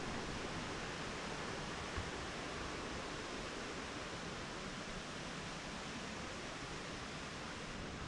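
Low, steady rush of the Elk River and its falls, an even hiss that does not change, with one soft knock about two seconds in.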